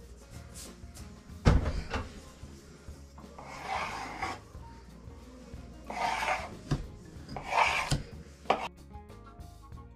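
A knife blade drawn through a rolled-out sheet of chapati dough, scraping along the tabletop in three long strokes, with a few sharp knocks on the table in between. Faint background music plays underneath and shows more plainly near the end.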